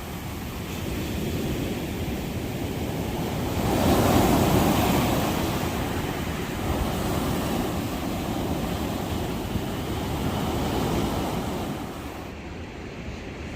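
Pacific Ocean surf: waves breaking and washing up the beach, a steady rushing wash with one wave crashing louder about four seconds in, then easing off near the end.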